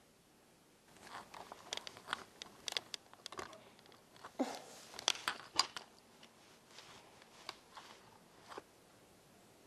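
A series of faint clicks and knocks with light rustling as a shoulder-mounted professional video camera is handled and hoisted onto the shoulder.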